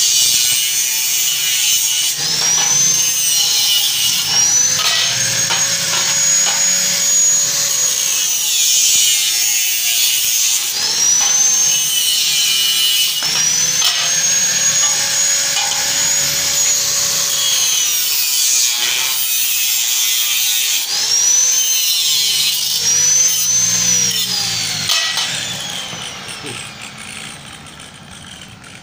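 Angle grinder with a cut-off disc cutting square hollow steel tubing: a harsh grinding hiss over the motor's whine, which sags in pitch each time the disc bites into the steel and climbs back between cuts, several times over. Near the end the grinding stops and the sound dies away.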